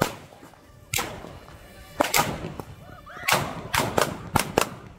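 Firecrackers going off: single sharp bangs about a second apart, each trailing off in an echo, then coming fast in a ragged string from a little past the halfway point.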